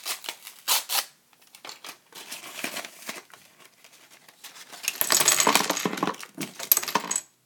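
Paper envelope being handled and torn open, with a dense burst of paper crinkling and tearing about five seconds in. Two sharp clicks come in the first second.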